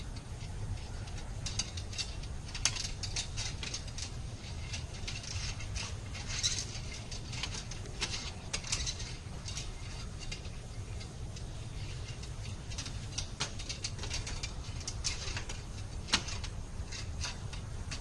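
Irregular light metallic clicks and scrapes of hand tools working in the top of an aluminium narrow-stile door at its flush bolt, over a steady low hum.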